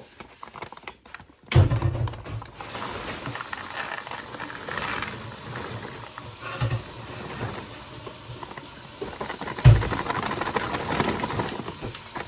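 A paper bag of homemade microwave popcorn giving a dense, steady rustling, hissing noise. It starts suddenly with a dull thump about a second and a half in, and a few more thumps follow.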